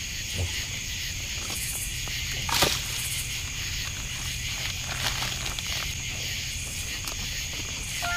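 Night insects, crickets or katydids, calling in a steady high-pitched drone, with a sharp click about two and a half seconds in and a few fainter clicks later.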